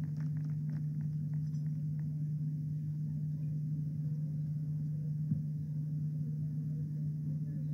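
Scattered hand claps thinning out and stopping about two seconds in, over a steady low hum.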